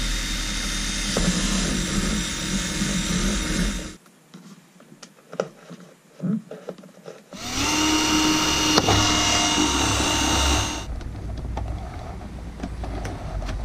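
Cordless drill running in two bursts, about four seconds and then about three seconds, drilling through a thin clear plastic box. The second burst starts with a rising whine as the motor spins up. Quieter clicks and handling come in the pause between the bursts.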